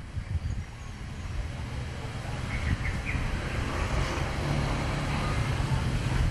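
Low engine rumble of a passing vehicle growing steadily louder, with a few short high chirps about two and a half to three seconds in.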